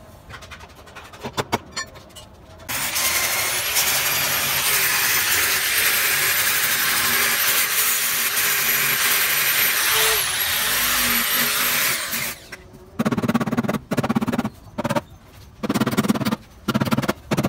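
Angle grinder with an abrasive disc running against a car's steel body panel for about ten seconds, with a high motor whine over the grinding, then stopping. It is followed by a quick series of hammer blows on the sheet metal as the panel is beaten straight.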